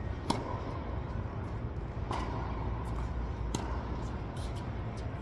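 Tennis ball hit by rackets and bouncing on the court during a doubles rally: about five sharp pops, each echoing in the indoor hall. A steady low hum runs underneath.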